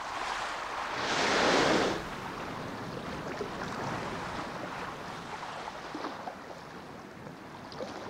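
Humpback whale blowing at the surface: a loud breathy rush of exhaled air through the blowhole about a second in, lasting about a second, then sea water washing around the whale's back.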